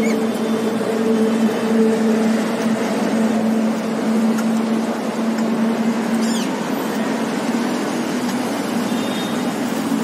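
Steady city road-traffic noise with a low, continuous engine hum, and one brief high falling chirp about six and a half seconds in.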